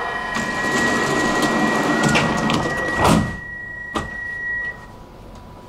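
Stockholm metro train standing at a station platform: a broad rumbling noise with a steady high tone over it, which stops near the end. A loud rushing swell about three seconds in is followed by a sharp knock about a second later, as someone boards through the open doors.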